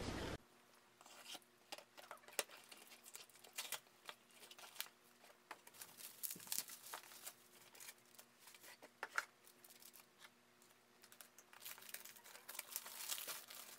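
Bubble wrap and plastic packaging crinkling and rustling under hands, with many small sharp crackles. The rustling grows denser near the end.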